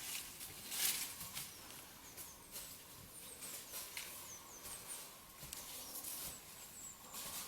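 Footsteps crunching at an uneven pace, with small birds giving short, high, downward-gliding chirps in the background.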